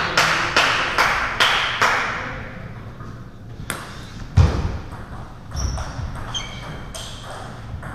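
Table tennis ball bouncing repeatedly, a sharp click about two or three times a second for the first two seconds. Later there is a single thud, and near the end a few short high squeaks.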